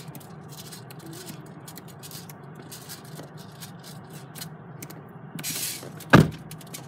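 Steady low hum of a car interior with faint scattered clicks, a short hiss about five and a half seconds in, then a sudden loud thump just after six seconds.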